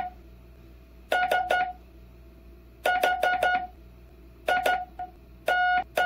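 Hand-sent Morse code (CW) tone: a mid-pitched beep keyed on and off in quick dits and dahs. The letters come in about four short, fast clusters with pauses of a second or more between them, which is Farnsworth timing: characters sent at speed, spaces stretched out.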